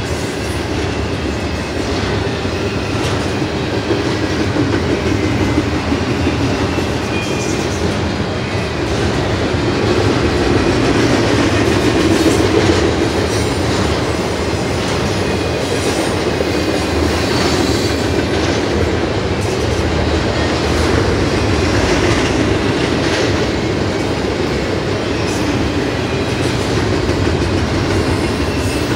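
Double-stack intermodal container well cars rolling past close by: a steady rumble of steel wheels on rail with repeated clicks as the wheels pass over rail joints.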